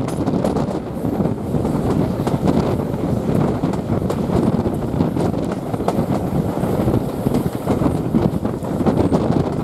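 Steady rumble of a heritage railway carriage running along the track, heard at an open window, with wind buffeting the microphone and scattered short knocks from the running gear.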